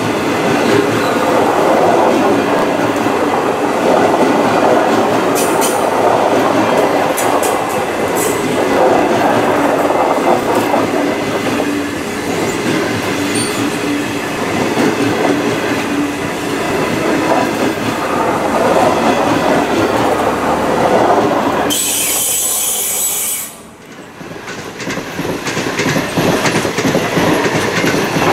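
Stainless-steel passenger carriages rolling past at speed: a steady rumble of wheels on rail with a few sharp clicks over rail joints. Near the end comes a brief loud hiss, then the sound drops away suddenly and builds back up.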